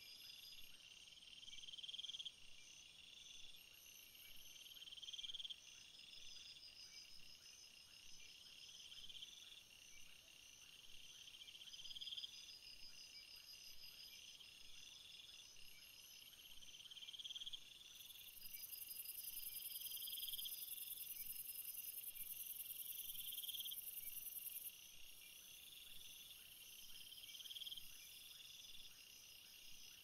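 Faint chorus of crickets and other insects calling together. One caller repeats a swelling chirping phrase about every two seconds, over steady higher pulsed trills. A shrill high buzz grows louder for several seconds past the middle, then drops back.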